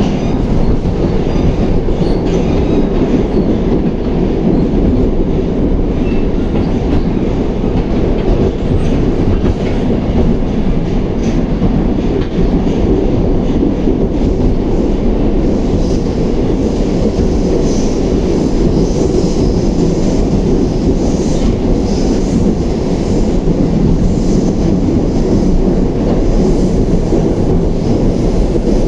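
Moscow metro 81-760A/761A "Oka" train heard from inside the car while running: a steady, loud rumble of wheels on rails and running gear. About halfway through, a higher hiss joins it.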